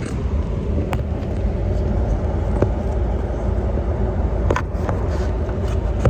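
Road noise inside a moving car: a steady low rumble, with a few short clicks.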